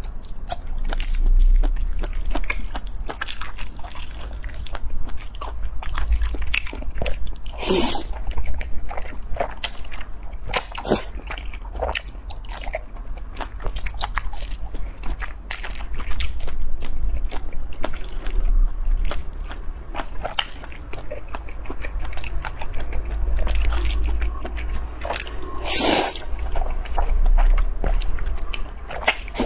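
Close-miked chewing and slurping of noodles with sausage: wet mouth smacks and clicks throughout, with a couple of louder, longer slurps about eight and twenty-six seconds in.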